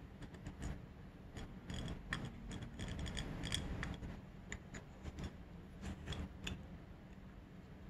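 Faint metal clicks and light scrapes from a Keihin FCR carburetor's slide valve and lift arm being worked back into the carburetor body by hand. The clicks come irregularly and stop about six and a half seconds in.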